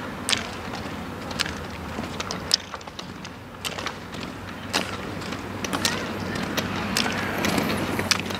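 Roller ski poles' metal tips striking asphalt in an even rhythm, about one pole plant a second, over the steady rolling noise of rollerski wheels on tarmac.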